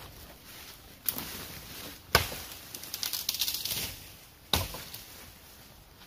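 Footsteps on the forest floor: a sharp crunch of leaf litter and twigs about a second in, a louder one a second later, a run of small crackles after it, and another crunch at about four and a half seconds.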